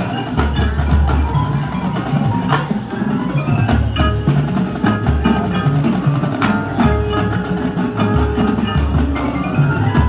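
High school marching band playing its field show, with front-ensemble mallet percussion (marimba, glockenspiel, chimes) and drums prominent over low held bass notes.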